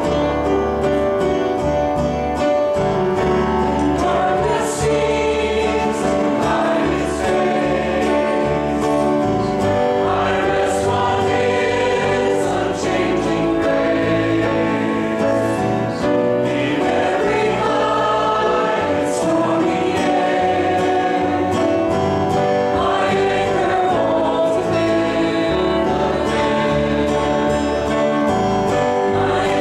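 Live gospel worship song: several voices singing together, backed by grand piano and guitars, carrying on steadily throughout.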